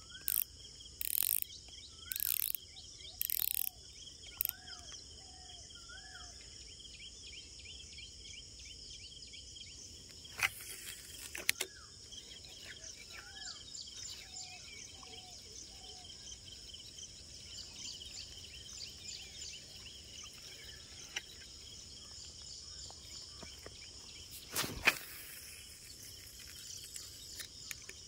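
Steady high-pitched chirring of insects with a bird repeating a short whistled call in two runs. A few brief hissing swishes come in the first few seconds, and a single sharp knock comes near the end.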